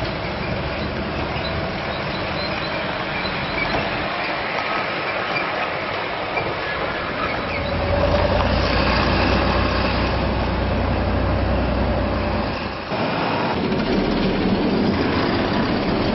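Heavy road-works machinery running: diesel engines with a steady mechanical din. A deeper engine hum comes in about eight seconds in, and the sound dips briefly and changes near thirteen seconds.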